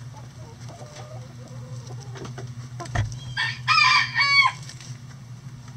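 Chickens clucking softly, then a rooster crows once about three and a half seconds in: a short, high crow in two parts ending on a falling note. A single thump comes just before the crow.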